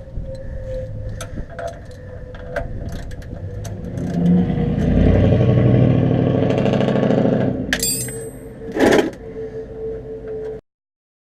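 Light metallic clicks and clanks of a socket and ratchet on the oil filter. About four seconds in, a vehicle engine grows loud and runs for about four seconds before fading, followed by two sharp knocks.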